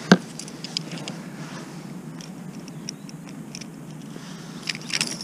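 Close-up handling noises from a landed pike and the hooked swimbait: one sharp click just after the start, then scattered light clicks and taps, which grow busier near the end.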